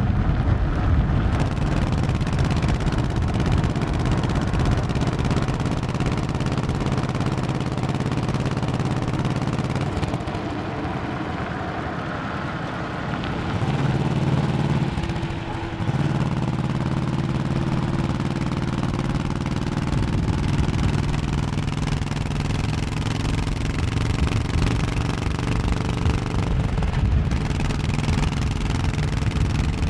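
Honda 1100cc motorcycle engine running under way on the road. The engine note eases off for a few seconds about a third of the way in, then picks up again with a brief dip just after, and runs steadily from there.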